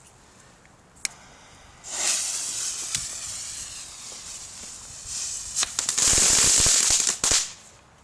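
Lesli Black Bull firework going off: it hisses for about three seconds from about two seconds in, then breaks into loud, dense crackling for about two seconds, which ends in a few last pops.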